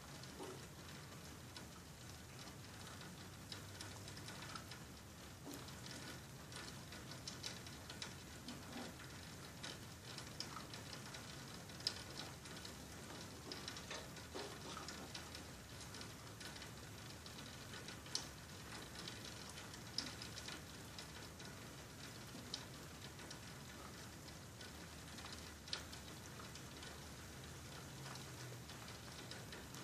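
Faint rain falling, with individual drops ticking irregularly on nearby surfaces over a steady soft hiss.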